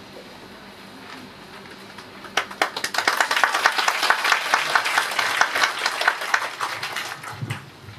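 Audience applauding. The clapping breaks out a couple of seconds in and dies away near the end.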